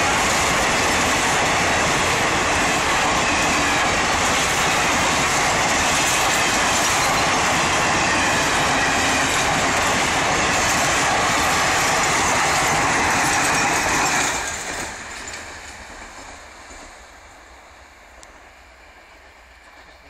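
Passenger coaches of a superfast express train running past close by, their wheels clattering on the rails in a loud, steady rush. About fourteen seconds in the last coach goes by and the sound falls away quickly, fading as the train recedes.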